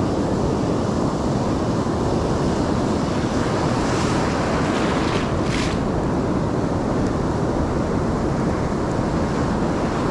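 Ocean surf breaking and washing on the beach, with wind rumbling on the microphone; a brighter hiss of water swells up about halfway through.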